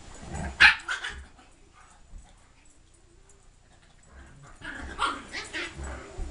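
Dog barking during rough play: two sharp barks in the first second, a quiet spell, then a run of quick barks starting about four and a half seconds in.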